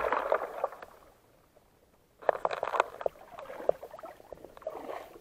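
A radio-controlled model boat's motor and water rush fade out within the first second as it coasts to a stop. After a short pause come scattered splashes, drips and knocks as the boat is lifted out of the water by hand.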